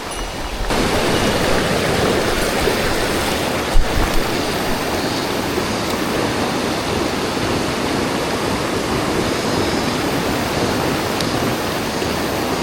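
Mountain stream rushing steadily over rocks, a continuous even water noise that grows louder under a second in. A single short knock about four seconds in.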